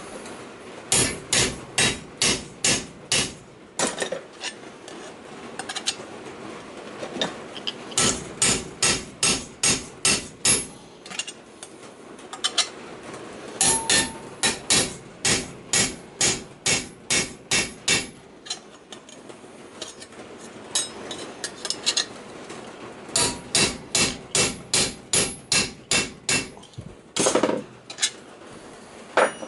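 Hammer blows on a steel punch dishing (flaring) the vent holes of a thin stainless steel sheet-metal panel. Sharp strikes come in quick runs, about three a second, with pauses between the runs.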